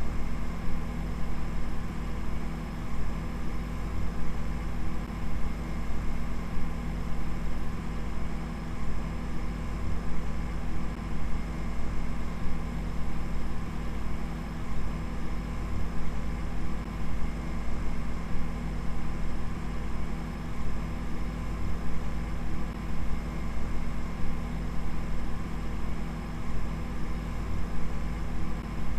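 A steady, low machine-like drone holding several steady tones, its loudness flickering rapidly.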